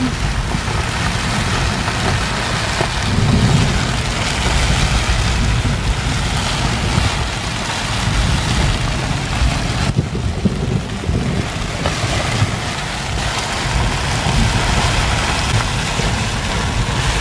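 Heavy rain and strong, gusting storm wind, near cyclone strength, with the wind buffeting the microphone in a continuous low rumble.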